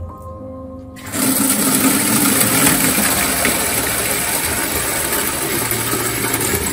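Background music with held notes, then about a second in a sudden switch to water gushing from a tap into a galvanized metal watering can: a loud, steady rush that covers the music.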